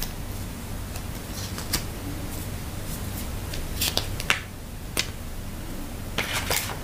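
Paper leaflets and a small cardboard box being handled: scattered short crisp rustles and light clicks, a few seconds apart, over a low steady hum.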